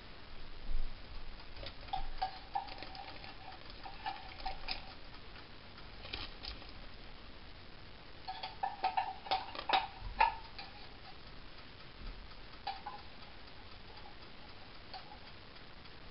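Wooden spoon scraping and knocking inside a tin can of corn, tapping the kernels out: scattered clusters of clicks and taps, some with a short metallic ring from the can, busiest about nine to ten seconds in.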